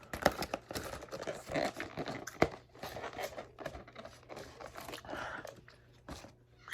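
Close-up crinkling and tearing handling noises with sharp clicks, in quick irregular bursts, typical of napkins or food being handled and eaten right at the microphone.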